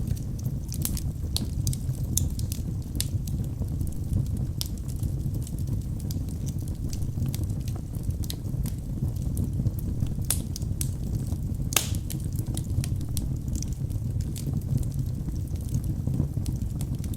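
Wood fire burning in a fireplace: frequent sharp crackles and pops over a steady low rumble, with one louder pop about twelve seconds in.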